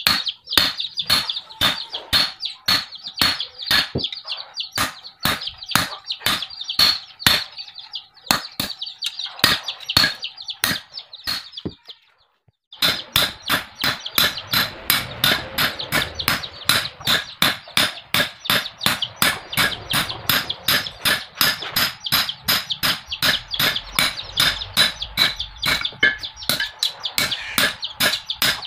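A hand hammer forging a red-hot steel bar cut from a bearing, on a steel-cylinder anvil, in steady blows of about two a second. After a short break about twelve seconds in, the blows come faster, about three a second.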